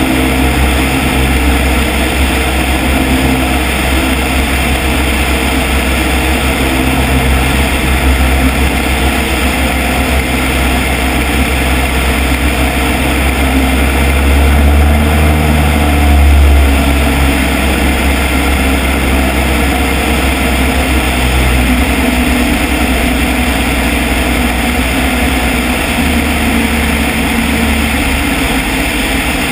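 Piper Cub light airplane's engine and propeller droning steadily in cruise, with wind rushing over the outside-mounted microphone; the drone swells briefly about halfway through.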